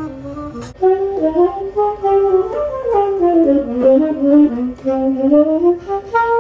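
Tenor saxophone played unaccompanied: a single flowing jazz line of notes moving up and down, louder from about a second in.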